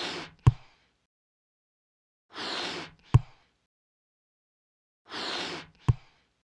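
Cartoon sound effect of a letter-shaped balloon being inflated, three times over. Each time a half-second hiss of air is followed by a sharp, deep thump.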